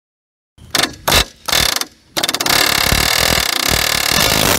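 Pneumatic air hammer with a pointed bit ground flat, hammering up on a seized tie rod end stud to drive it out of an aluminium steering knuckle. It gives three short bursts, then from about two seconds in runs as a steady rapid hammering that cuts off suddenly.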